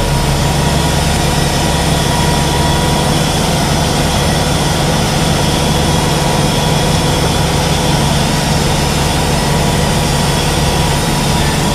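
John Deere 5820 tractor engine running steadily at high revs, driving a broadcast fertiliser spreader through the PTO while it spreads granulated lime.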